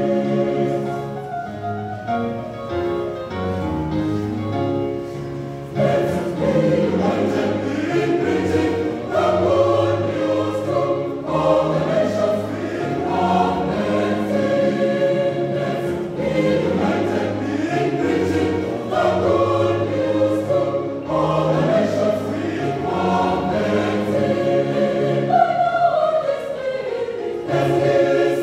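Mixed-voice church choir singing a hymn in parts, sustained chords, softer for the first few seconds and fuller from about six seconds in.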